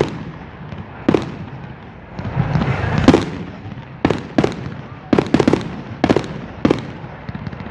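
Fireworks display: aerial shells bursting in a string of about ten sharp bangs, irregularly spaced. A rushing swell builds about two seconds in and ends in the loudest bang about three seconds in.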